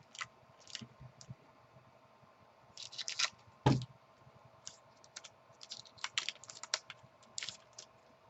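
Trading cards being handled: scattered short crisp clicks and rustles as the cards and pack are flipped and sorted, with a louder knock about three and a half seconds in.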